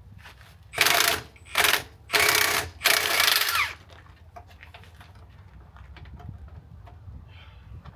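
Impact wrench run in four short bursts on a nut, the last two longest, about a second in until nearly four seconds in.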